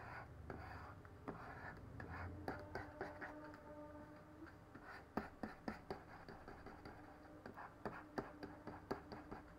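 Faint, irregular taps and light scratches of a pen stylus working on a graphics tablet, over a faint steady hum.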